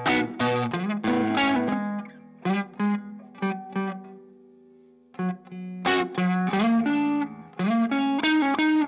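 Fender Stratocaster electric guitar played through an MXR Classic 108 fuzz and a Strymon Iridium amp modeller, picking single notes of a riff. About two seconds in, a held note rings out and fades for a few seconds, then the picking starts again and grows loud.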